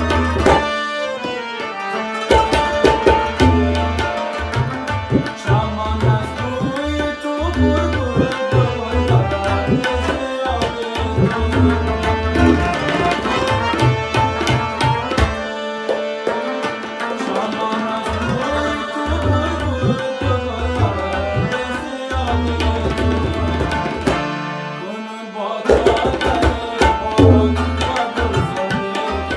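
Tabla, harmonium and rubab playing an instrumental passage: quick tabla strokes under a sustained harmonium melody. The tabla drops out briefly three times.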